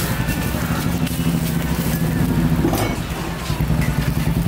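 An engine running steadily, a low hum with a fast pulse, dropping out briefly about three seconds in.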